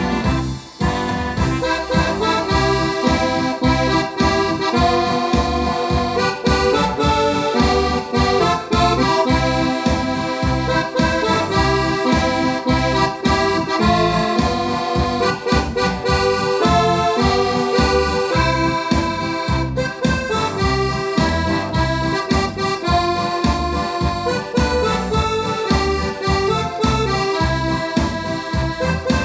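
Electronic keyboard played through an external loudspeaker box: a melody over the keyboard's automatic accompaniment, with a steady bass-and-drum beat.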